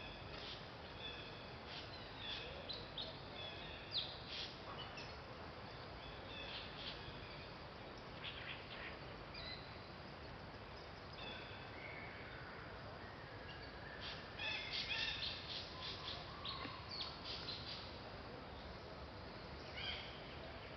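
Birds chirping in short, scattered calls over a steady background hiss, with a busier cluster of chirps about two-thirds of the way through.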